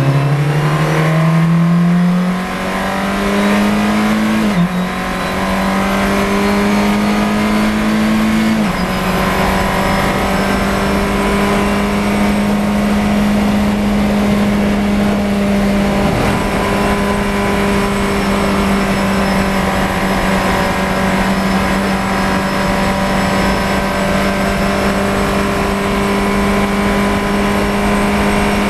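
Fun Cup race car's engine heard from inside the cockpit, accelerating hard: the revs climb, drop with an upshift about four and a half seconds in and again near nine seconds, then hold at a steady pitch as the car runs at about 100 mph.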